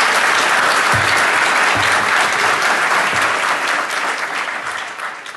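Audience applauding, with a few dull thumps underneath; the clapping dies away near the end.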